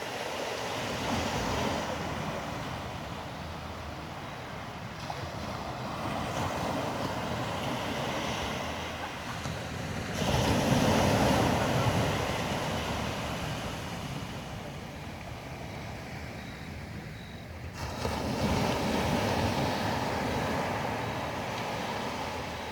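Ocean surf breaking on a beach: a steady rush of waves that swells and ebbs, with the loudest surge about ten to twelve seconds in and another near the end.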